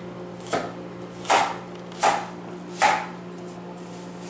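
Kitchen knife cutting an apple on a plastic cutting board: four sharp chops about three-quarters of a second apart, each blade striking the board.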